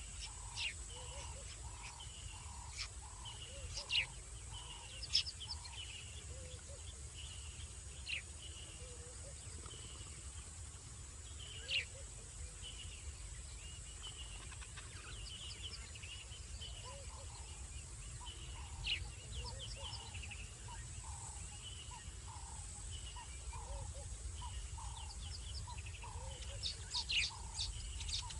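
Night chorus of small animals calling at the waterhole: a lower hooked note repeating about twice a second and higher chirps in a steady rhythm, with a few sharp clicks standing out above it.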